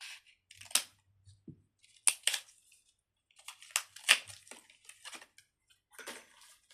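Fidget toys being handled, a string of sharp crackling clicks and rustles at irregular intervals, loudest about two and four seconds in.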